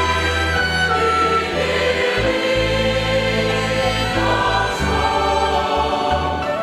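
Church choir singing a slow hymn in sustained notes, accompanied by a violin ensemble.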